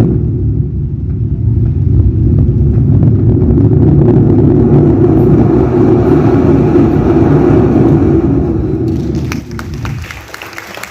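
Foley rocket-launch effect: a loud, steady deep rumble that holds for about nine seconds and dies down near the end, a studio-made stand-in for a rocket lift-off.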